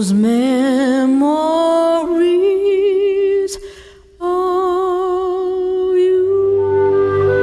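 Music: a solo voice singing slow, long held notes with a wide vibrato, sliding up into the first notes and breaking off briefly about four seconds in. Low sustained accompanying notes come in near the end.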